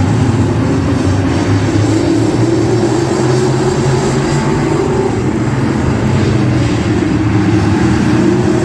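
Race car engine running at high, nearly steady revs, a loud continuous drone.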